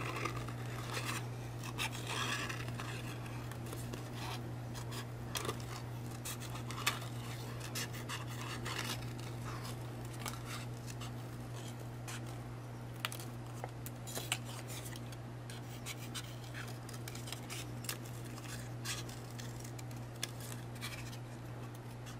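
Small scissors snipping through cardstock in many short, irregular cuts, over a steady low hum.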